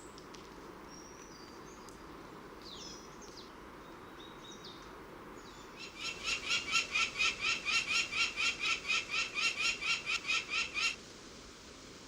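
Faint, scattered high bird chirps over a steady outdoor hiss. About halfway through comes a loud, rapid run of about twenty repeated call notes, roughly four a second, which stops abruptly about a second before the end.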